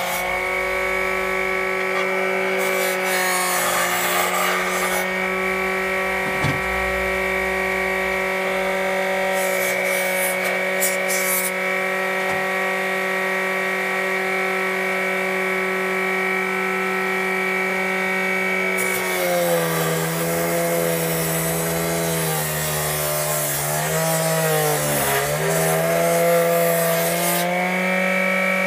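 Juicer motor driving a homemade disc sander, running with a steady whine. Metal is ground against the sanding disc in the first few seconds. From about two-thirds of the way through, the whine sags and wavers in pitch as work is pressed against the disc and loads the motor.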